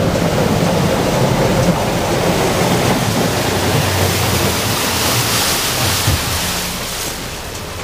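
Fast motorboat under way, heard inside its wheelhouse: a steady rush of water and wind over a low engine drone, getting quieter near the end.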